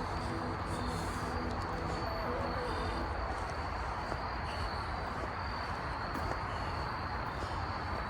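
Insects trilling steadily at one high pitch over a steady rushing noise, with background music fading out in the first few seconds.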